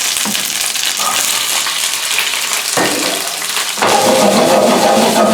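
Food sizzling in hot olive oil in a frying pan. A steady hum joins in about four seconds in.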